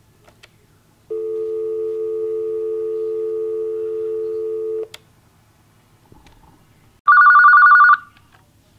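Hotel desk telephone: a steady dial tone for nearly four seconds, cut off with a click, then about two seconds later one short, loud, warbling electronic ring from the phone.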